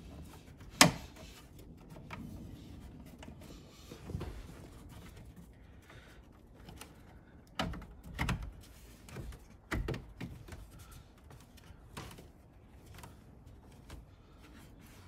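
Plastic dash bezel of a 2006 Ford F-150 being pressed back into the dash by hand, its retaining clips snapping in with sharp plastic clicks. The loudest snap comes about a second in, and a cluster of snaps follows around the middle.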